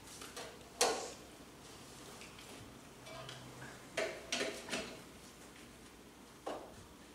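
Communion ware being handled on the altar table: short clinks and knocks of trays and cups being set down, a sharp one about a second in, three in quick succession around four seconds in, and one more near the end.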